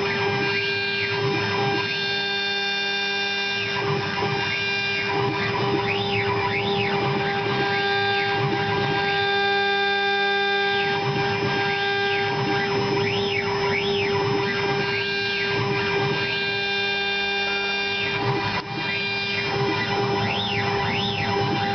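TZJD-3030M CNC router running with its 1.5 kW spindle giving a steady whine. Whines that rise and fall in pitch every second or two come over it as the axes move.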